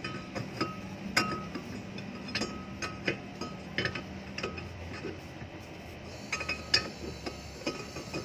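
Irregular metallic clinks, about ten, each with a short ring, as a steel slide-hammer puller's weight and yoke knock against the wheel hub studs while the tool is being fitted. The loudest clinks come about a second in and near the seven-second mark.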